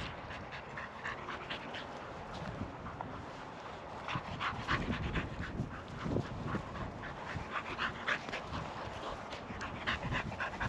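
English springer spaniel panting rapidly, several breaths a second, louder from about four seconds in.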